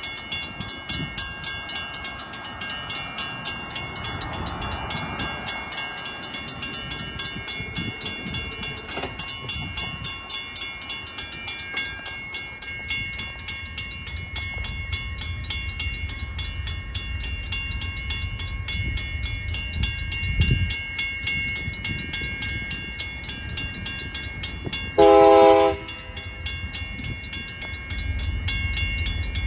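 Railroad crossing signal bell ringing steadily, with the rumble of an approaching diesel locomotive growing from about halfway through. Near the end the locomotive's horn sounds one loud blast of about a second.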